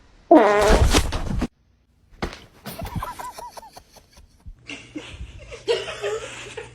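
A person laughing in short choppy bursts. A sudden cut to silence comes about a second and a half in, and the laughing resumes after it.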